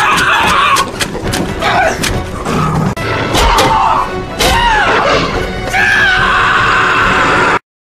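Film fight-scene soundtrack: music over a string of crashes and thuds, with a man screaming about halfway through. It all cuts off suddenly near the end.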